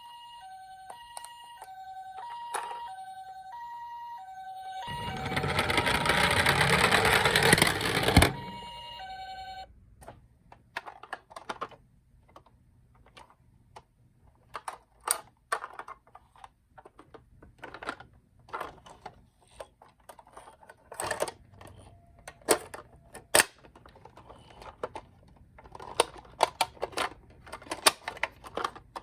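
Toy ambulance's electronic two-tone hi-lo siren alternating steadily. About five seconds in, a loud rushing noise takes over for about three seconds and ends in a sharp knock. The siren sounds briefly again, then only scattered light plastic clicks and knocks follow.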